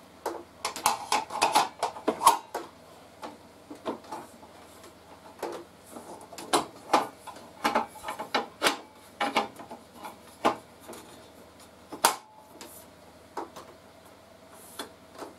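A plastic push stick being slotted into its holder on the side of a DeWalt DW745 table saw's fence, with the fence being handled: light plastic clicks and knocks, thickest in the first couple of seconds, then spaced out, with one sharper knock about twelve seconds in.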